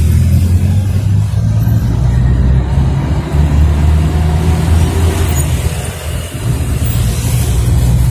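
Angkot minibus engine running as it drives, heard from inside the cabin as a loud, steady low drone, with a brief dip in level about six seconds in.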